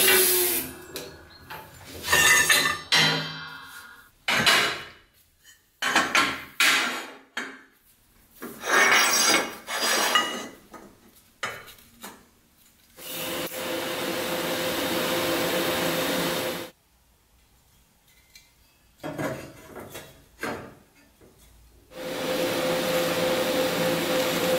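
Steel tubes and tools clanking and knocking on a steel workbench, sharp separate knocks for the first several seconds. Then come two stretches of steady TIG welding arc hiss with a constant hum, each about three seconds long, one near the middle and one running through the end.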